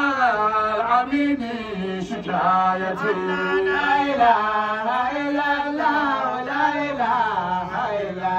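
Men's voices chanting an Islamic praise song (madaha) into a microphone, with no instruments: long, drawn-out melodic phrases whose pitch bends up and down.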